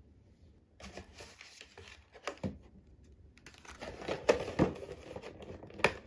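Paper and cardboard rustling and crinkling as donuts in paper wrappers are handled and taken out of a cardboard donut box, with a few sharper taps and knocks, the loudest about four seconds in and again near the end.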